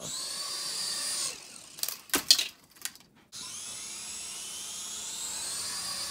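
Small electric motor of a toy RC helicopter running with a high whine, broken by a few sharp knocks around two seconds in. It then starts again, its pitch rising slowly as it speeds up.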